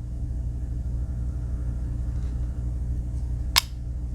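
Steady low room hum, with a single sharp click about three and a half seconds in: a Victorinox Swiss Army knife tool snapping home on its backspring.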